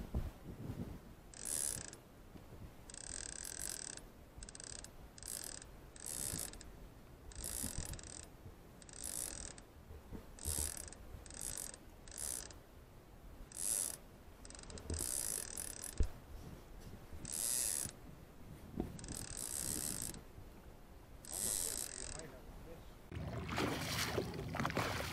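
Trolling reel ratcheting as line pays out, in short high-pitched spurts that come over and over at uneven intervals. Near the end a steadier rush of boat and wind noise takes over.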